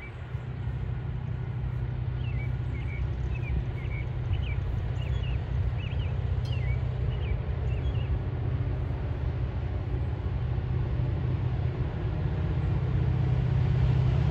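Steady low diesel rumble of an approaching Metra commuter train, growing slightly louder near the end. Birds chirp over it in the first half.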